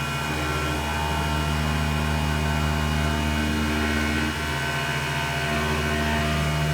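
Converted Grizzly G0704 CNC milling machine cutting an adaptive clearing pass: the spindle and end mill run steadily, with a brief drop in level about four seconds in. The machine sounds tight and solid, which the owner credits to its linear rails.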